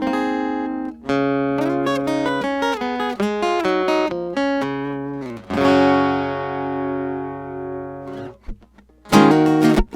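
Strinberg SD201 HCR steel-string acoustic-electric guitar playing picked notes and chords. About halfway through, a chord is left ringing for a few seconds; after a brief pause near the end, the playing turns to quick strummed chords.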